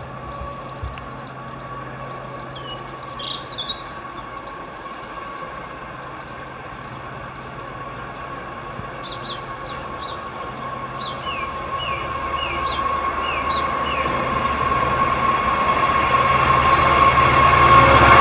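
An approaching train, its sound growing steadily louder, with a steady high-pitched hum throughout. Birds chirp a few times in the middle.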